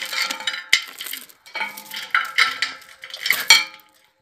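Steel hoist chain and pipe fittings clinking and clanking with a metallic ring as the last pipe section of a turbine well pump column is fitted at the well head. Two sharper metal knocks stand out, one under a second in and a louder one about three and a half seconds in.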